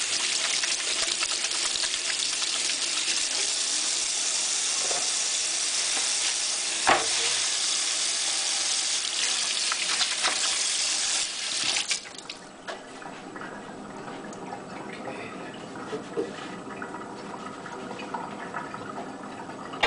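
Kitchen tap running steadily into a stainless-steel sink while hands are rinsed under it, shut off suddenly about twelve seconds in. A few light knocks and clicks follow.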